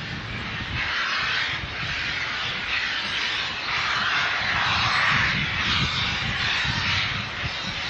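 Steam locomotive working hard as it approaches, its exhaust beats coming as a loud rushing chuff over a low rumble, growing louder toward the middle.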